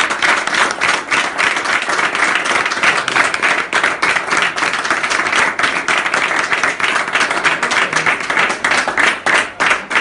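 A roomful of people applauding, many hands clapping continuously and at a steady level.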